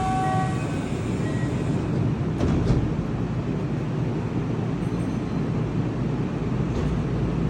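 Kintetsu electric train pulling out of the station, a steady low rumble of motors and wheels on the track; a few steady tones fade out in the first half second.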